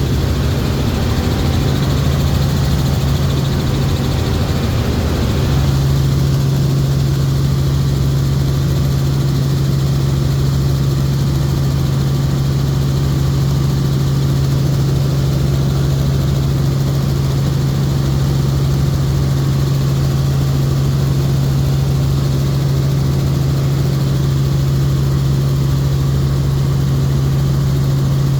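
Helicopter engine and rotor running with a loud, steady drone that neither rises nor falls.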